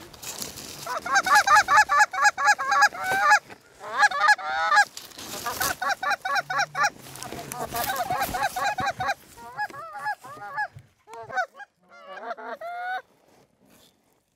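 Hand-blown goose calls imitating Canada geese: rapid runs of honks and clucks in several loud bursts, which stop near the end.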